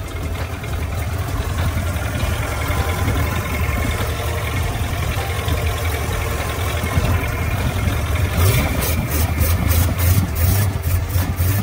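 Freshly overhauled Mitsubishi L300 engine idling with a steady low running sound. From about eight seconds in, a quick series of sharp clicks sounds over it.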